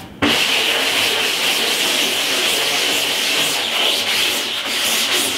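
Scrub brush rubbing over a screen-printing screen's stretched mesh wet with emulsion remover, working the reclaimer in to break down the stencil emulsion. It is a steady scratchy rubbing that starts suddenly just after the start.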